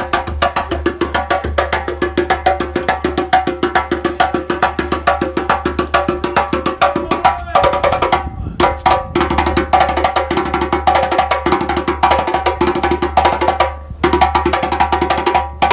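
Drumming music: a fast, dense rhythm of hand-drum and wooden strikes, with two short breaks about eight and fourteen seconds in.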